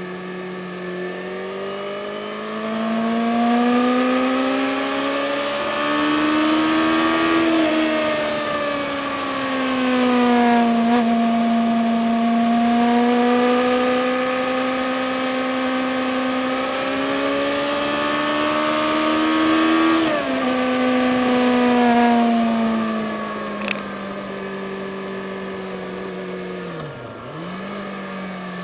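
Yamaha FZ6 Fazer S2's inline-four engine pulling hard under acceleration, heard from on board with wind rush. Its note climbs steadily, then drops sharply at upshifts about a quarter of the way in and again about two-thirds through. Near the end it dips briefly as the throttle is closed, then picks up again.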